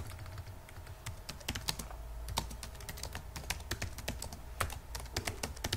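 Computer keyboard typing: keystrokes clicking at an uneven pace, several a second, with short pauses between runs of keys.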